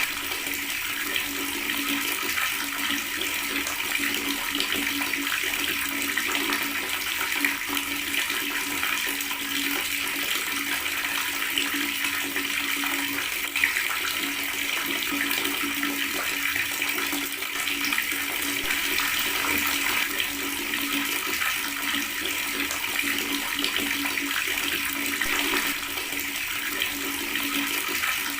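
Water running steadily from a tap, gurgling, with no change in the flow and one small click about halfway through.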